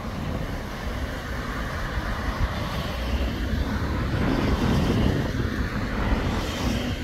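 Scania Citywide low-floor city bus engine running with a low rumble, growing louder about four seconds in and easing off again near the end.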